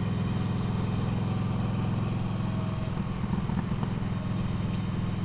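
Kawasaki Vulcan Nomad V-twin engine running steadily under way, with wind rushing over the rider's helmet microphone. Around three seconds in, the engine note wavers briefly.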